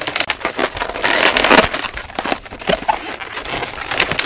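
Inflated latex modelling balloons rubbing against each other as they are wrapped and squeezed by hand, in irregular strokes with a few short squeaks.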